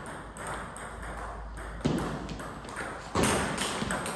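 Table tennis rally: the ball clicking off the bats and the table in quick succession, with two louder thuds, about two seconds in and just after three seconds.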